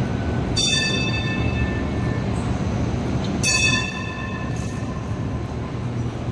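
Two rings of a Hong Kong Light Rail Phase 1 car's warning gong, about three seconds apart, each fading over about a second, over the low rumble of the light rail vehicle rolling slowly in.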